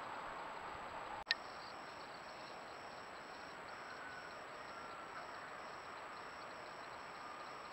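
Faint high insect chirping in an even pulse of a few chirps a second, starting just after a sharp click about a second in where one trail-camera clip cuts to the next.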